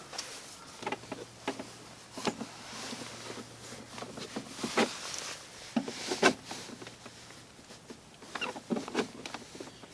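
Irregular plastic clicks and taps as plastic retaining pins are worked loose from the back of a car door trim piece, the sharpest about six seconds in.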